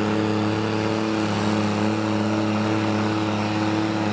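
Farm tractor's diesel engine running hard and steady under load as it drags a tractor-pulling weight sled, its pitch holding level throughout.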